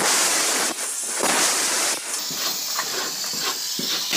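Angle grinder with a cutting disc cutting through a painted metal roof sheet: a loud, steady hiss of disc on metal that dips briefly twice as the disc is eased off and set back into the cut.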